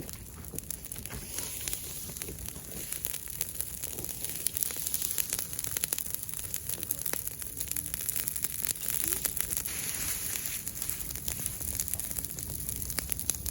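Campfire crackling, a dense run of small pops and snaps over a steady hiss.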